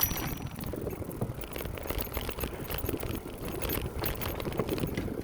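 Bicycle being ridden: steady rolling rumble of the tyres on the path, with light rattling and clicking from the bike.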